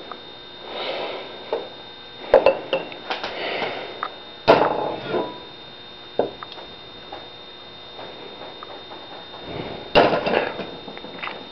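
Handling noises: scattered knocks and clatters of cups and a plastic syrup jug being moved and set down on an enamel electric stovetop, the sharpest knock about four and a half seconds in and another clatter near the end.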